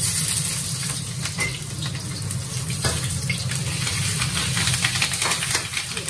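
Pork fat and chopped green vegetables stir-frying in a carbon-steel wok over a gas flame: a steady sizzle with frequent clicks and scrapes of a metal spatula against the wok, over a low steady hum.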